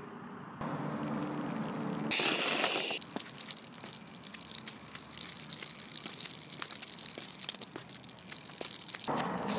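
Small wooden toy engine's wheels rolling over rough concrete, a scatter of small gritty clicks and ticks. Before that, about two seconds in, a loud hiss lasts about a second.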